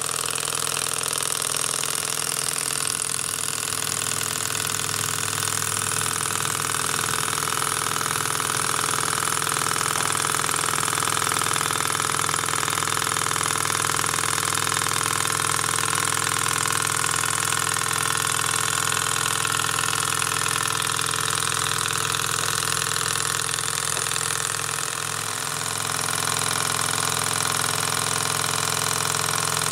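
PM Research Peanut Rider Stirling hot-air engine running steadily under its burner flame, a continuous mechanical running sound with steady tones, dipping slightly about 25 seconds in.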